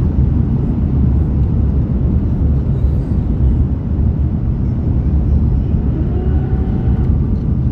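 Airbus A330-300 airliner running, a loud steady low rumble.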